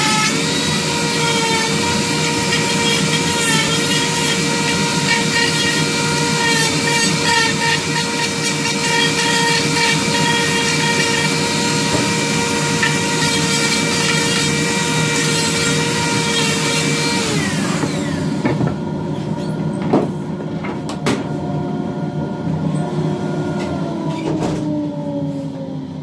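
Dremel rotary tool running at high speed with a carving burr grinding into wood: a steady high whine over a rough, gritty rasp. About 17 seconds in it is switched off and winds down, followed by a few sharp knocks and a falling whine near the end.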